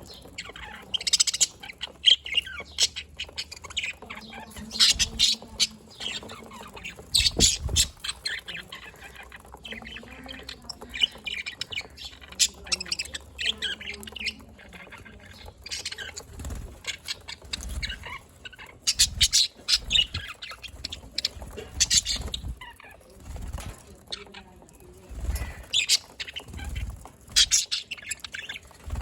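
A flock of budgerigars chirping and squawking together in a fast, continuous chatter of short high calls, with a few low thumps along the way.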